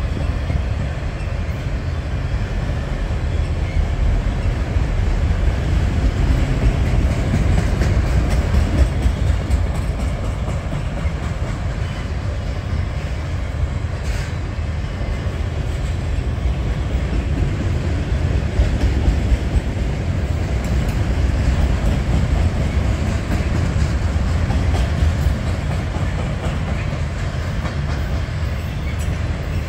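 Enclosed autorack freight cars of a Canadian National train rolling past: a steady low rumble of steel wheels on the rails.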